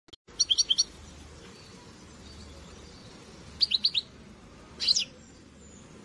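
European goldfinch chirping in three short bursts of quick high notes: a run of about five notes at the start, four more a little past halfway, and a quick sweeping pair near the end, over a steady low background rumble.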